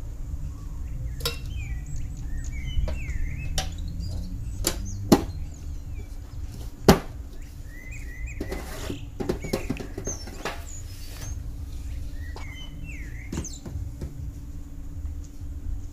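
Sharp clicks and knocks of sugar cubes and a metal sugar tin being handled, the two loudest knocks about five and seven seconds in, followed by a few seconds of rustling. Small birds chirp in short up-and-down calls over a low steady hum.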